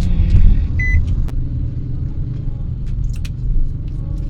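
Low, steady rumble of a car on the road, with a short high beep about a second in.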